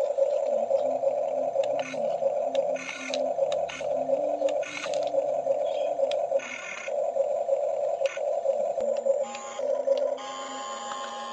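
Small electric motors of a Huina RC toy excavator whirring in short spurts, stopping and starting every second or so as its controls are worked.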